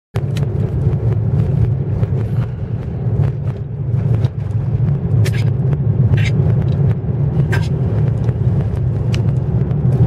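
Strong wind buffeting the microphone: a heavy, uneven low rumble, with scattered clicks and a few brief hissy gusts about five, six and seven and a half seconds in.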